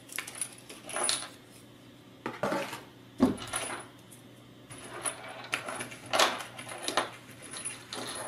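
A plastic parts bag rustling as it is cut open with scissors, then small metal parts, M3 screws and copper standoff pillars, clattering onto the table with a sharp clack about three seconds in. Scattered clinks and bag crinkles follow as the parts are handled.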